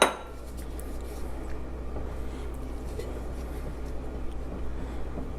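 Faint soft scraping and small ticks as flour and baking soda are tipped into a bowl of wet cookie batter, over a steady low hum. A glassy clink rings off at the very start.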